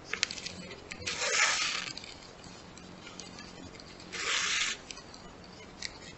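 A shoelace being pulled through the punched holes of a homemade paper lacing board: two rasping swishes, one about a second in and a shorter one about four seconds in, with a few light ticks of handling just after the start.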